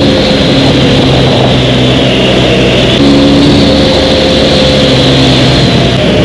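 Dual-sport motorcycle engine running at speed under a steady rush of wind noise. Its note shifts at the start and again about three seconds in.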